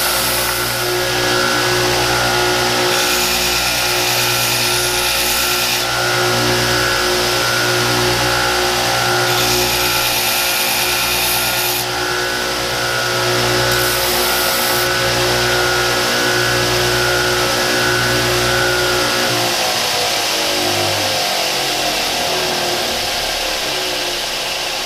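Belt sander running on a cast iron part, with several stretches of grinding hiss each time the part is pressed to the belt. About three-quarters of the way in, the motor's hum falls steadily in pitch as the sander winds down.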